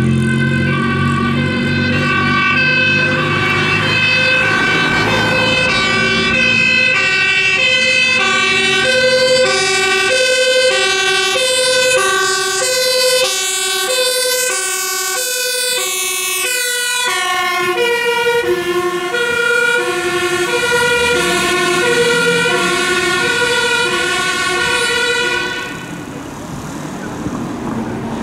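Two-tone siren of a Dutch emergency vehicle, switching steadily between a high and a low note as the vehicle approaches and passes. The notes drop a little in pitch after it goes by, past the middle. The siren cuts off near the end.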